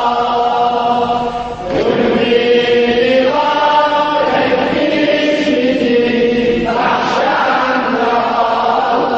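Chanted Azerbaijani mourning elegy for Imam Hussain: long held vocal notes that step to a new pitch a few times, with a brief dip just before the first change.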